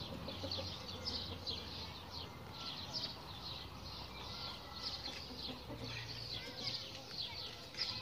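Young chickens peeping: a steady run of short, high, falling peeps, two or three a second.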